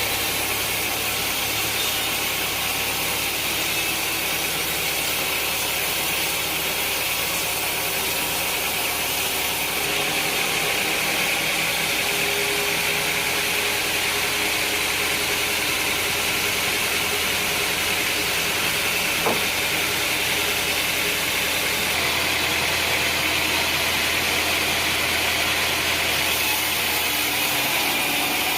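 Sawmill machinery running steadily, a low engine-like hum under a bright hiss, with a single short knock about two-thirds of the way through.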